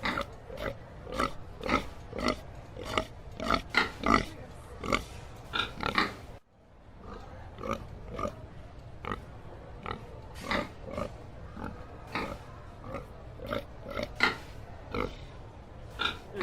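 Domestic pigs grunting, a steady run of short grunts about one or two a second, with a brief break about six seconds in.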